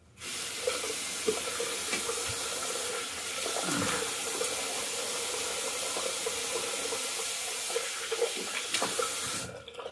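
Bathroom sink faucet running in a steady stream with occasional small splashes, turned on suddenly and shut off shortly before the end.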